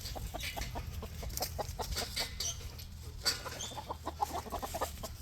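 A flock of chickens clucking: many short, irregular clucks with a few brief higher calls.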